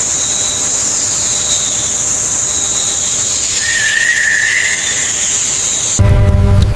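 Jungle ambience: a steady high insect drone with whistling bird calls. About six seconds in, a sudden loud low rumble breaks in.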